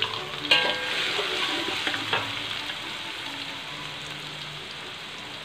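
Chopped garlic and onion sizzling in hot oil in a wok while a metal spatula stirs and scrapes them around the pan, with a couple of sharp knocks against the metal about half a second and two seconds in. The sizzle slowly eases.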